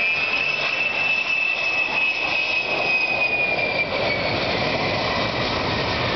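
Tupolev Tu-154M jet airliner passing low, its three tail-mounted Soloviev D-30KU-154 turbofans running. A loud high engine whine falls slightly in pitch about four seconds in as a deeper roar builds beneath it.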